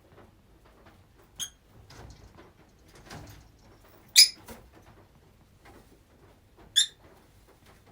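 Rosy-faced lovebirds giving three short, sharp chirps, the loudest about four seconds in, with faint scratching and rustling between the calls.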